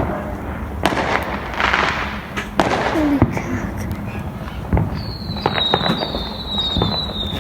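Fireworks going off: scattered bangs and crackles, with a thin high whistle over the last couple of seconds.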